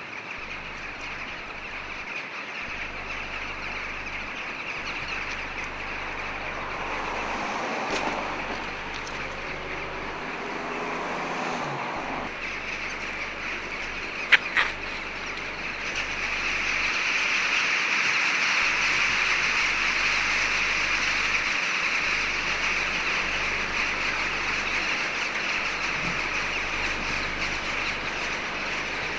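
A large flock of jackdaws calling, a dense continuous chatter that swells louder a little past halfway. Two sharp clicks come just before that.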